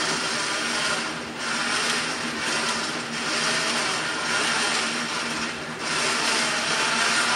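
Robot's electric winch motor and gearing whirring steadily as the climbing arm is lowered, with brief dips about a second in, around three seconds in and near six seconds in.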